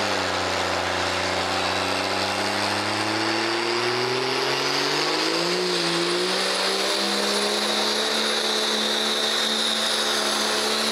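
Diesel engine of a Dodge Ram pickup revving up under load during a burnout, its pitch climbing over the first six seconds and then held high, with a steady high whine above the engine note.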